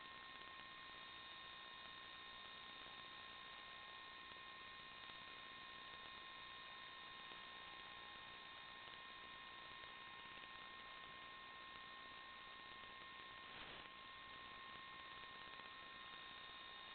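Near silence: a faint steady electronic hiss with a few thin steady hum tones, and one brief faint crackle about three-quarters of the way through. No motor or propeller sound is audible.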